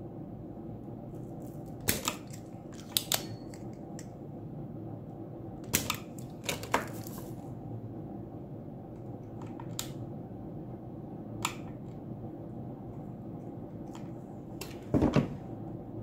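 Spring-loaded desoldering pump (solder sucker) being cocked and fired several times, sharp snapping clicks spaced a few seconds apart, one followed by a short hiss, as solder is sucked off the pins of a failed switching power IC on a circuit board. A steady low hum runs underneath.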